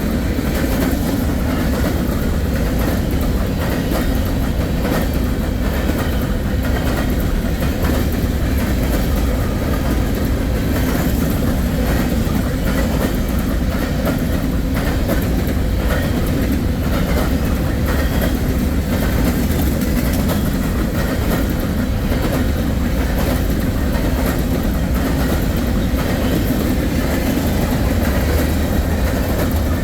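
Empty grain hopper cars of a freight train rolling past, a steady loud rumble with wheels clattering over the rail joints.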